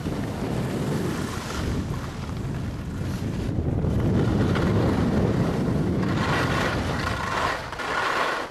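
Wind rushing over the microphone of a camera moving fast down a ski slope, mixed with the steady hiss and scrape of snowboards sliding on packed snow.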